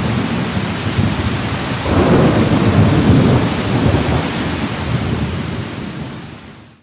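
Heavy rain pouring in a thunderstorm, with a roll of thunder that swells about two seconds in and rumbles on for a few seconds. The sound fades out near the end.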